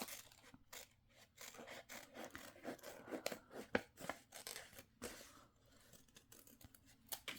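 Scissors snipping through paper in a run of short, quiet, irregular snips, thinning out near the end.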